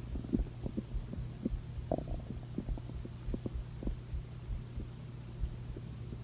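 Stomach growling: irregular short gurgles and pops over a steady low hum.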